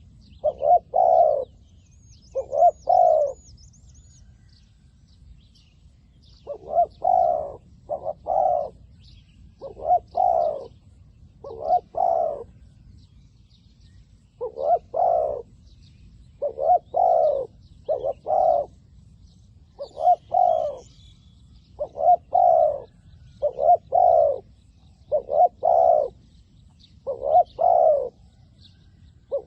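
A decoy dove cooing over and over, each phrase two or three low coos, with a pause of a few seconds about 4 s in. Faint chirps of small birds sound higher up.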